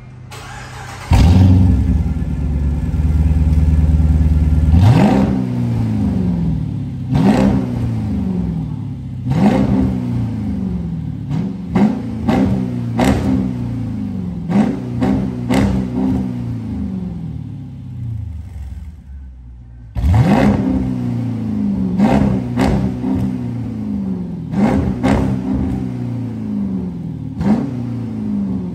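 Jeep Grand Cherokee exhaust through an aftermarket MagnaFlow muffler. The engine starts about a second in with a loud flare, then settles to idle. It is then revved in a long series of short throttle blips, each rising and falling back, roughly one every one to two seconds.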